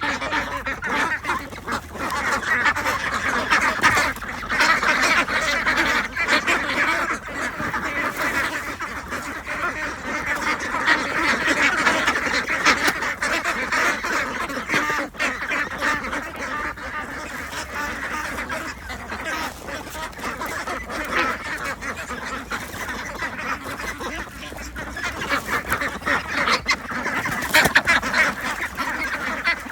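A flock of ducks calling and quacking continuously, many birds at once, in a dense, unbroken chatter.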